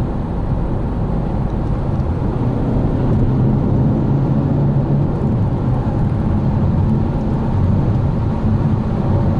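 Cabin noise of a Volkswagen Passat GT under way: steady road and tyre rumble with the hum of its 190 hp two-litre TDI diesel engine. The low engine hum grows a little stronger a few seconds in.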